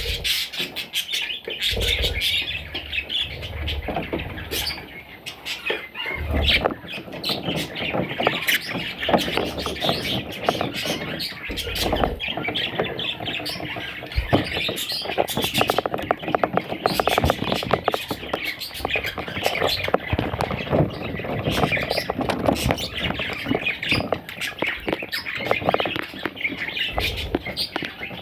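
Budgerigars squawking and chattering without a break, with a few low thumps.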